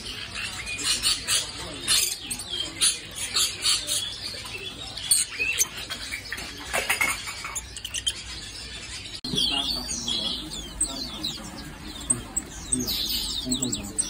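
Many small caged birds, budgerigars and other parakeets among them, chirping and chattering in quick, overlapping short calls, with a dense flurry of chirps near the end.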